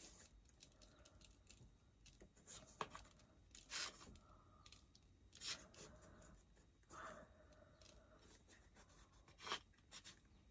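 Near silence with a few faint, short scratchy rustles spaced a second or two apart: dry coffee grounds being pinched from a plate and sprinkled lightly onto wet Mod Podge.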